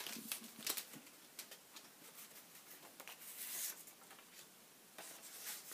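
Faint rustling and scraping of a clear plastic sleeve and a cardboard box being slid apart by hand, with a few light clicks early on and a soft rustle about three and a half seconds in.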